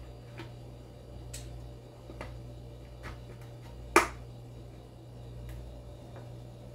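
Plastic cap on a cardboard orange juice carton being twisted open and its seal pulled: a few small clicks, then one sharp snap about four seconds in.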